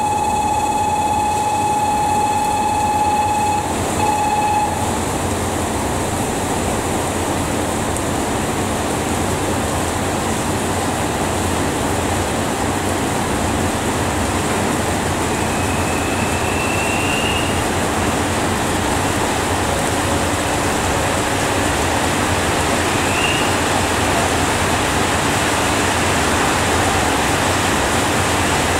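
Heavy rain pouring steadily, with a station departure buzzer holding one steady pitched tone for about the first five seconds. A JR Shikoku 2700 series diesel railcar idles at the platform under the rain, and two short high squeaks come later on.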